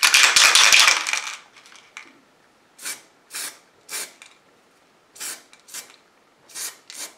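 Aerosol spray paint can hissing as it coats a lead figure: one long burst of about a second, then a run of short, quick puffs.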